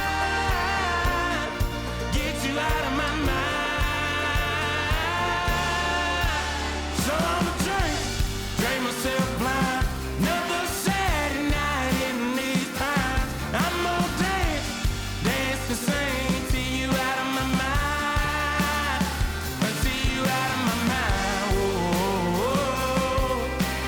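Background music: a rock-style song with sung melody, guitars and a steady drum beat.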